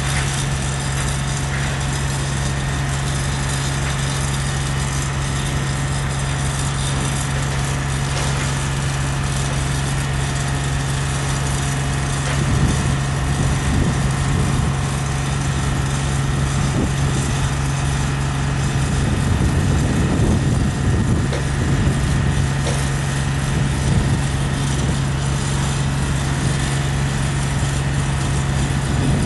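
Haulotte H21TX boom lift's diesel engine running at a steady speed while the boom is lowered. It gets louder and rougher about twelve seconds in and again around twenty seconds in.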